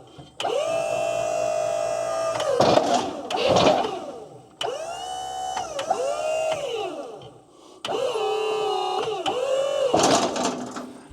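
Wood-Mizer LT40 sawmill's hydraulic pump motor whining in three runs as the hydraulic log clamp is worked to turn a log, each run winding up and then down, with the pitch sagging under load in the last one. Knocks from the log and clamp come between the first and second runs.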